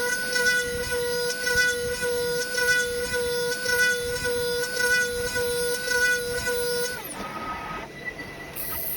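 CNC router spindle whining at a steady high pitch while milling knife handles, the cutting noise swelling and fading as the tool passes. About seven seconds in, the whine drops away and the sound goes quieter.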